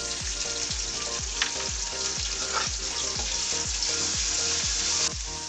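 Onions with ginger-garlic paste and salt sizzling in hot oil in a kadai, with a couple of brief stirring scrapes. The sizzle drops suddenly near the end, and a regular low beat of about three thumps a second runs underneath.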